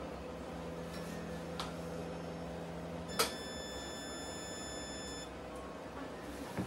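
A click about three seconds in, then one steady high electronic beep lasting about two seconds, from the endoscopy equipment being readied. A low steady hum sounds under the first half and stops as the beep begins.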